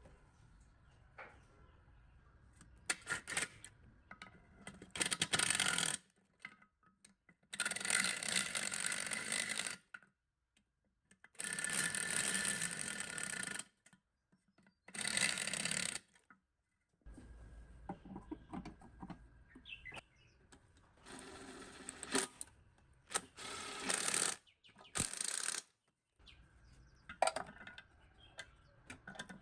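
A series of short bursts of workshop tool and machine noise, each lasting one to three seconds and cutting off suddenly, with fainter handling sounds between them.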